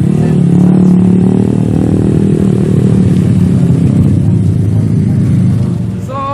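Motor vehicle engine running loudly, its pitch rising slightly at first and then holding steady.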